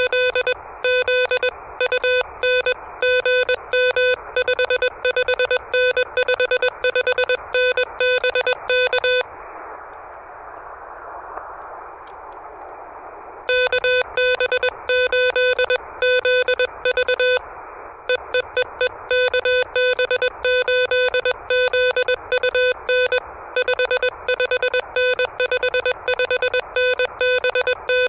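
Morse code (CW) from an Elecraft KH1 transceiver: a loud tone of about 500 Hz keyed on and off in quick dots and dashes over a steady hiss of radio band noise. The code pauses for about four seconds in the middle and briefly again later, leaving only the hiss.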